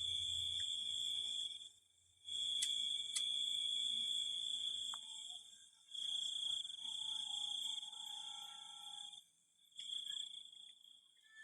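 A night insect calling with a steady, high-pitched trill in four bouts of a few seconds each, broken by short pauses. This is the unexplained sound being searched for in the dark.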